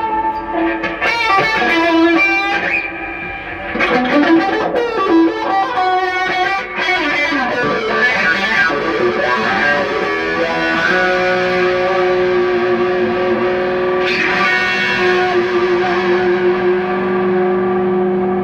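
Electric guitar played through a distorted tone, improvising a lead in E minor: quick bent notes with vibrato for the first ten seconds or so, then long sustained notes held to the end.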